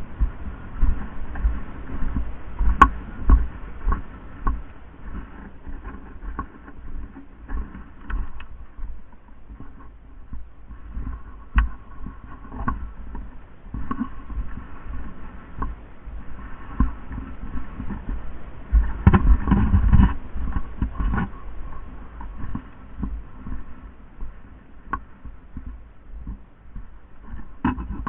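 Irregular low thumps and rustling with a few scattered sharp clicks, loudest about two-thirds of the way through.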